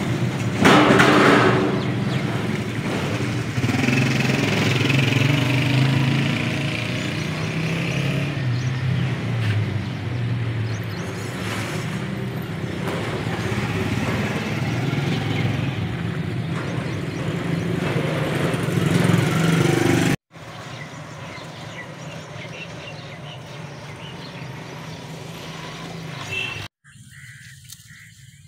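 A motor engine running steadily nearby with a low hum that shifts a little in pitch, dropping away to a much quieter background about two-thirds of the way through.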